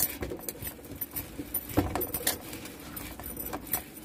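Hands shaping a soft, hot ball of mudde on a stainless steel plate, the plate clicking and clinking irregularly under the hand, with one louder knock a little under two seconds in.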